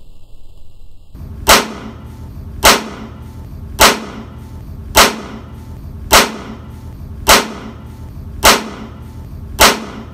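A sharp crack repeated eight times at a very even pace, a bit over a second apart, starting about a second and a half in.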